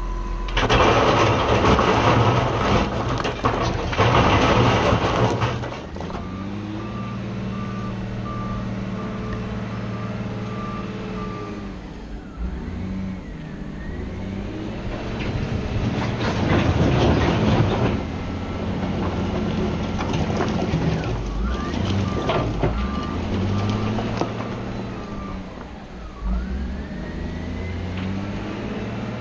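Caterpillar 966G wheel loader working rock: a loud crash of stone tumbling for about five seconds near the start and again briefly around the middle, over the steady diesel engine. Its reversing alarm beeps steadily in two spells as it backs away.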